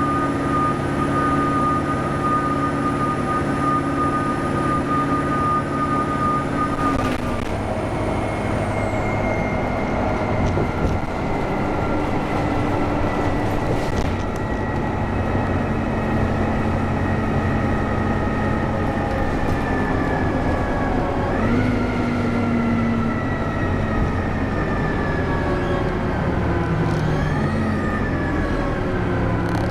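Turbocharged diesel engine of a NABI 436 transit bus under way, its high turbo whistle and engine tones steady at first, then dropping in pitch about seven seconds in. The tones then sag slowly and twice rise sharply before falling off again, over a constant low rumble of engine and road noise.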